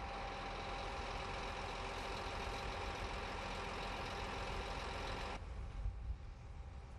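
Fire engine's engine running steadily, a constant mechanical hum with several held tones in it. It cuts off abruptly about five seconds in, leaving a fainter low rumble.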